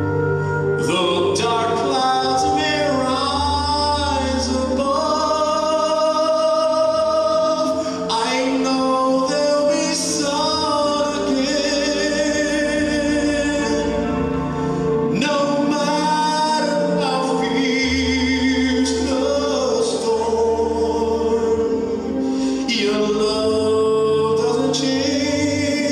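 Christian song with singing over instrumental accompaniment.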